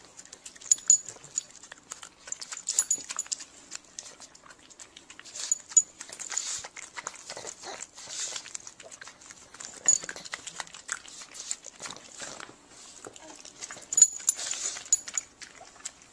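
A pug snuffling and slurping as it eats from a spoon held to its face, in quick irregular bouts with some sharp clicks.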